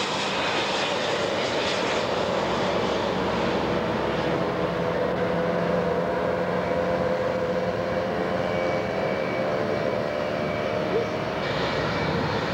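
Jet airliner landing: steady jet engine noise with a whine of several tones that drops slightly in pitch about nine seconds in.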